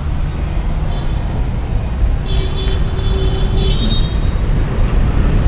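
Street traffic rumble with a vehicle horn held for about a second and a half near the middle.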